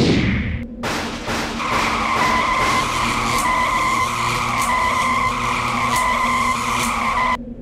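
Cartoon sound effects: a quick falling swoosh, then a long tyre screech, a hiss with a steady squealing tone held for several seconds, which cuts off suddenly near the end.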